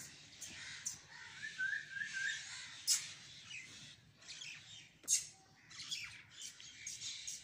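Birds calling in the background, with a short wavering run of chirps about two seconds in. Scattered sharp clicks, the loudest about three and five seconds in.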